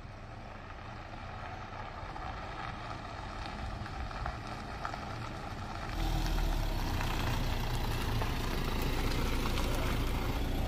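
Camper van driving, its engine and tyre noise heard from inside the cab. The noise rises slowly at first, then turns suddenly louder and deeper about six seconds in and stays steady.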